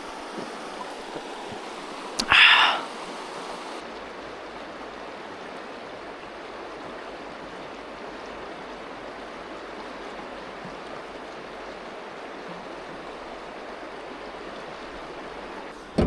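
A mountain creek running steadily. About two seconds in, a sharp click is followed by a brief, loud, higher-pitched sound lasting about half a second.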